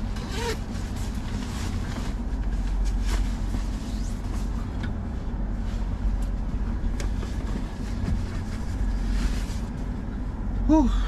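Steady low drone of a parked Freightliner Cascadia's idling diesel engine heard inside the cab, with rustling of clothing and light knocks as someone moves about the sleeper. A short gliding pitched sound comes near the end.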